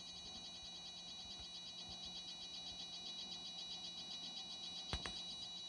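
Small 24 V brushless cooling fan turning slowly at a 15 percent speed setting: a faint high-pitched whine that pulses rapidly over a steady low hum, typical of a fan driven at low PWM duty. A short click about five seconds in.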